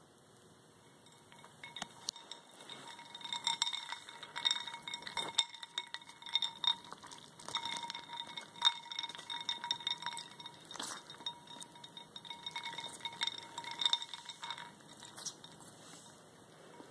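Ice cubes clinking against each other and against the sides of a ceramic water bowl as ferrets nose and paw at them in the water. The clinks come in an irregular run with a light ringing, starting about a second and a half in and thinning out near the end.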